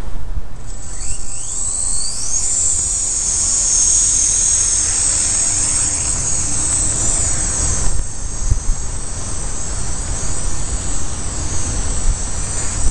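Walkera V120 micro RC helicopter's electric motors spooling up, a high whine that rises steeply about a second in and then holds steady while it flies, with a low rumble underneath.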